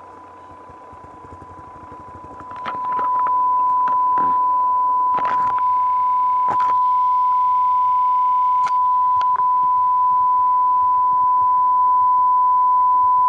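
Steady 1 kHz sine test tone from a speaker fed by an IRS2092 class D amplifier through a 4.7 kΩ resistor. It jumps louder about two and a half seconds in as the drive is raised toward the amplifier's clipping point, then holds steady. A few faint clicks sound along the way.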